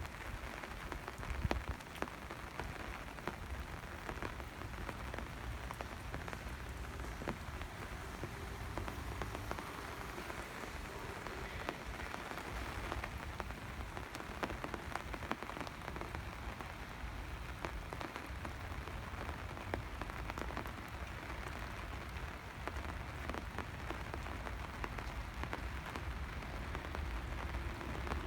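Steady rain falling: a constant hiss dotted with many small, sharp drop taps.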